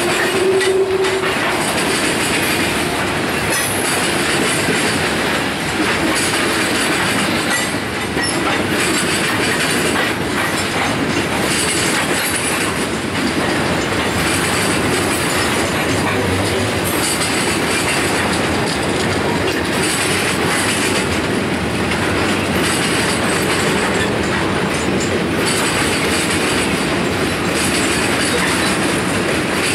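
Freight cars of a long mixed freight train (hoppers, gondolas and covered hoppers) rolling past close by: a steady, loud rumble with the clickety-clack of steel wheels over rail joints, and a brief tone of wheel squeal right at the start.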